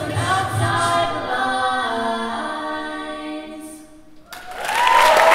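Mixed-voice a cappella group singing the closing chord of a song, held and fading out about four seconds in. Audience applause and cheers break out just after, near the end.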